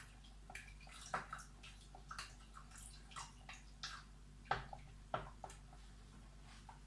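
Liquid in a pot of cheese-and-milk sauce: small irregular drips, splashes and clicks as a little water goes into the sauce.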